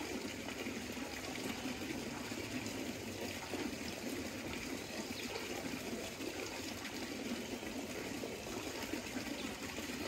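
Steady running water of a hot-spring stream or cascade, an even rush with no breaks.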